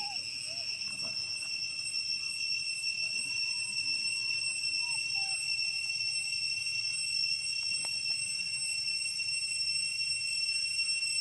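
Steady, high-pitched insect drone: one continuous buzzing tone with higher overtones above it. A few faint short whistling notes come and go, and there is a single sharp click about eight seconds in.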